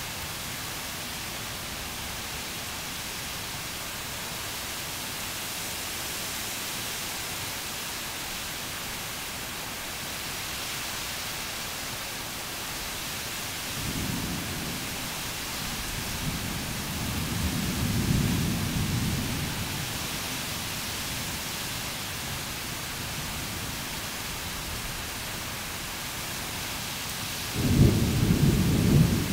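Heavy summer rainstorm: a steady hiss of downpour through wind-tossed trees, with a long roll of thunder building about halfway through and a sudden louder clap of thunder near the end.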